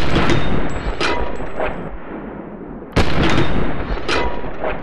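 Two gunshots from an AR-15-style carbine, dubbed in as film sound effects about three seconds apart. Each is a sudden loud bang with a long echoing tail. After each shot come two light metallic pings with a short ring: spent shell casings thrown out of the ejection port and striking metal.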